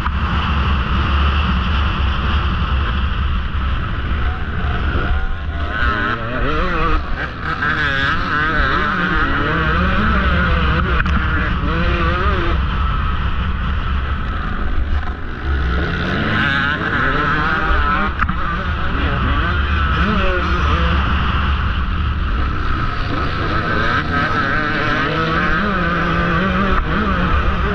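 KTM XC-W 150 two-stroke dirt bike engine at race pace, its revs climbing and dropping again and again through the gears, over a heavy low rumble of wind on the microphone.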